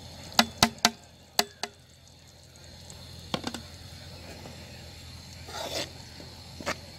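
Sharp knocks against an aluminium cooking pot: five quick ones in the first two seconds, two more a little later and one near the end. About two-thirds of the way in there is a brief scrape of a slotted metal spoon working flour into ghee in the pot.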